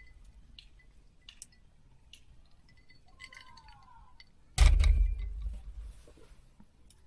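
Light clinks and taps of small hard items being handled, with a few short chirps near the middle, then a loud sudden bump and rustle about four and a half seconds in that fades over about a second.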